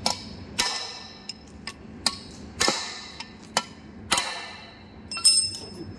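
Hammer blows on steel, tapping a ball bearing home into a BEML BD155 bulldozer transmission housing. There are about seven irregularly spaced strikes, each with a short metallic ring; the loudest comes about five seconds in.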